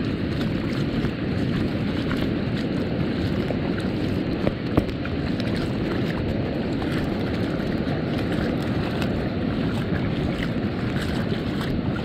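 Steady rush of wind and ocean surf, with light splashing from a small child's feet wading through shallow water. There are two short sharp knocks about four and a half seconds in.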